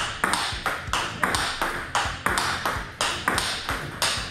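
Table tennis rally: a celluloid ball clicks off the table and the bats in a steady rhythm, about three clicks a second. One bat is a Kyohyo Long 5 blade with Fastarc G-1 rubber, driving forehands.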